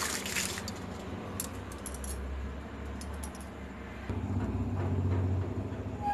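Foil-sealed biryani pot under a glass lid cooking on dum: faint scattered crackles and light clinks over a low steady rumble that swells near the end.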